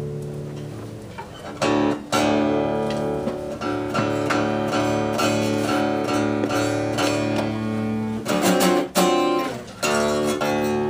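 Acoustic guitar strumming chords. A held chord rings out first, then comes a steady run of strummed chords with a couple of short breaks.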